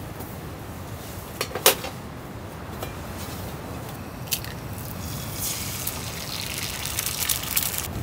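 A few sharp clicks about one and a half seconds in and another near the middle, then a crackling sizzle from a frying pan on a camp gas stove that sets in just past halfway and keeps going.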